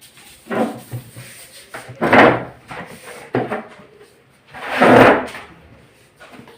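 Wooden furniture scraping and knocking as a chair is moved and sat on. There are two longer scrapes, about two seconds in and about five seconds in, and a few short knocks.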